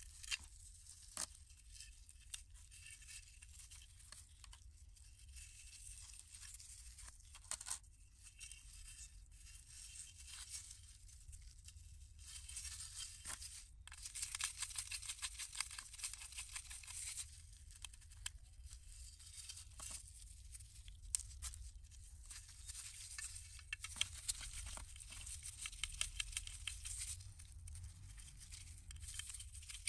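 A small screwdriver backs screws out of a metal model car body shell, with stretches of fast, scratchy clicking. Nitrile-gloved hands rustle and rub against the shell.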